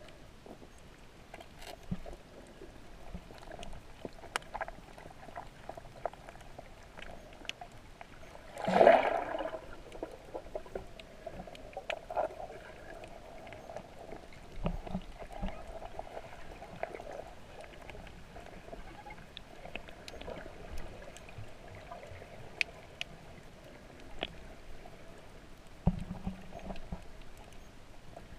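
Underwater sound heard through a camera's waterproof housing: muffled water noise with a faint steady hum and scattered small clicks, and one loud rush of bubbles about nine seconds in.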